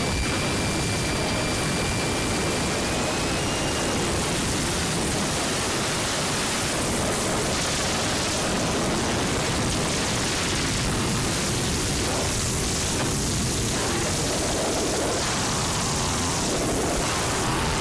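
Harsh noise music: a dense, unbroken wall of hiss and static at constant loudness. For the first few seconds a high whistling tone sits on top, steps up in pitch once and then fades out.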